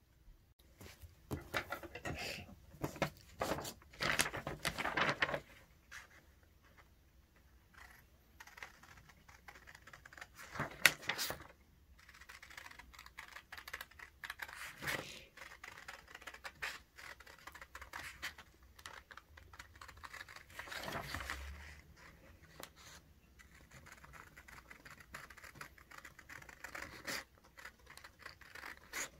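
Scissors cutting through a sheet of printed paper, a run of short snips and paper rustles. One sharper click about eleven seconds in.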